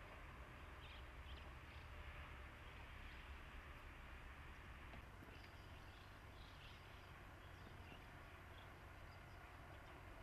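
Near silence: faint outdoor ambience, with a few short, faint high chirps scattered through it.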